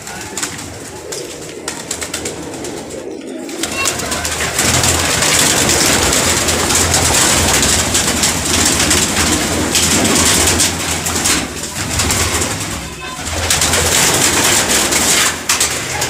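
Domestic pigeons cooing, with a dense rush of flapping wings from about four seconds in as birds fly about close by.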